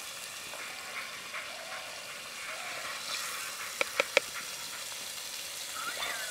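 Oil heating in a clay pot over a wood fire with a faint steady sizzle. About four seconds in come three short, sharp knocks as sliced green chilies and onion are tipped into the oil from a plastic plate, and the sizzle grows louder near the end as they begin to fry.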